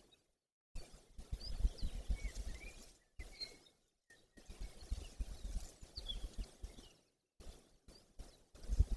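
Wind gusting over an outdoor microphone, with short, high bird chirps over it. The sound cuts out to silence briefly several times.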